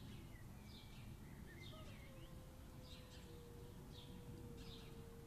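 Faint, drawn-out low yowl of a cat, one long held moan starting about two seconds in and sagging slightly in pitch, with small birds chirping repeatedly over a low background rumble.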